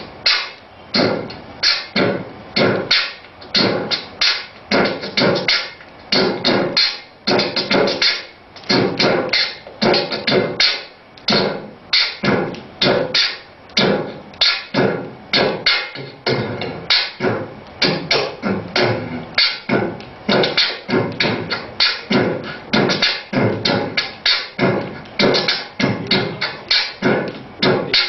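Human beatboxing: a continuous, fast run of mouth-made drum beats, about three to four sharp hits a second, in a steady rhythm.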